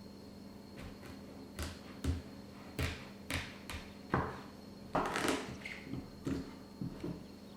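Irregular light knocks, taps and clicks, about a dozen, loudest and most frequent about halfway through, over a faint steady low hum.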